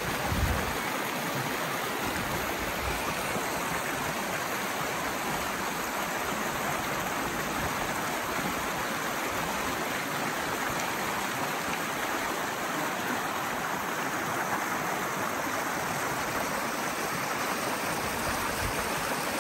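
Shallow rocky mountain creek running over stones: a steady rush of water, with one brief low thump about half a second in.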